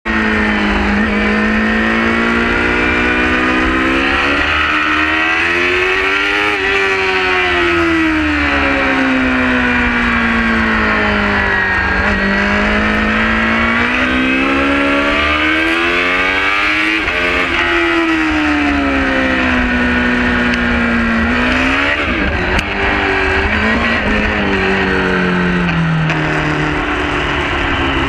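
Yamaha YZF-R6 inline-four engine at high revs, heard from a camera on the bike's tail at speed, its note climbing and falling in long sweeps of several seconds as the rider accelerates and slows for corners. A little past three-quarters of the way the note breaks suddenly with a sharp click and then runs lower.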